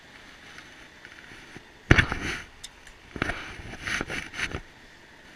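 Handling noise: a sharp knock about two seconds in, then a second cluster of knocks and rustling about a second later, as flexible plastic tubing and a PVC pipe are handled.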